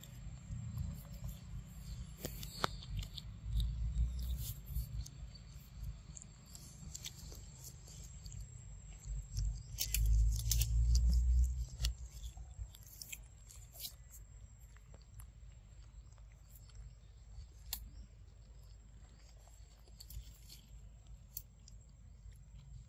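A macaque eating fruit close up: scattered sharp, wet clicks of biting and chewing over a low rumble on the microphone, with a louder stretch of rumble about ten seconds in. A faint steady high whine sits underneath.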